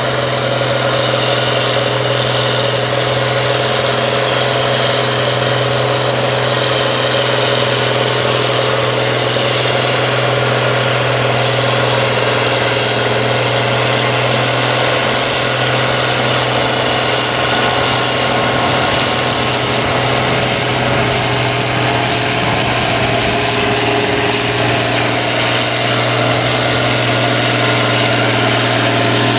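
An engine running steadily, holding the same pitch and level throughout.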